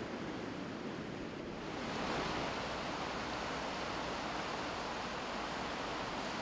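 Rushing river rapids: a steady hiss of white water, growing louder and fuller about two seconds in.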